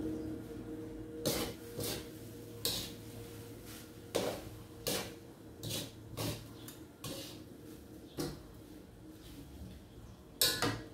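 Spatula scraping and knocking against a metal wok as fried rice is stirred, in irregular strokes roughly every half second to a second, with the loudest knock near the end.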